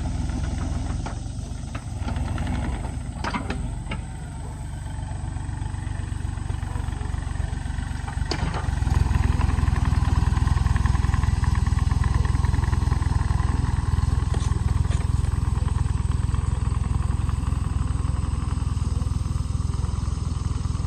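An engine running with a steady low rumble, a couple of sharp knocks in the first half, growing louder about nine seconds in.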